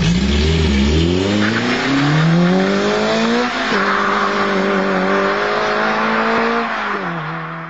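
Racing car engine accelerating hard: its pitch climbs for about three seconds, drops sharply at a gear change, holds steady, then falls away near the end.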